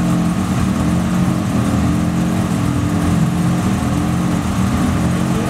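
1957 Chevrolet's engine idling steadily.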